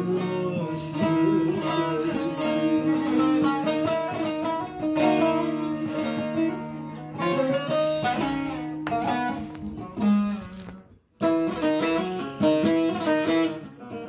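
Two bağlamas (long-necked Turkish saz lutes) played together in an instrumental passage of a folk tune, plucked melody over ringing drone strings, with a brief break about eleven seconds in.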